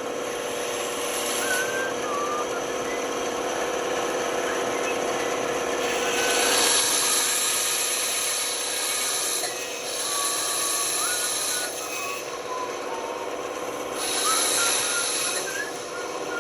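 Band saw running with a steady hum while cutting wood: the hiss of the blade in the cut swells for a second or more at a time, four times.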